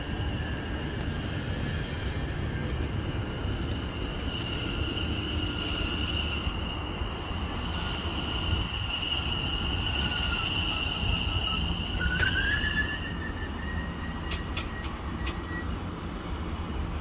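Greater Anglia Class 720 electric multiple unit running slowly alongside the platform: a steady high electrical whine over a low rumble. About twelve seconds in, a second whine rises in pitch as it gathers speed, and a few sharp clicks follow.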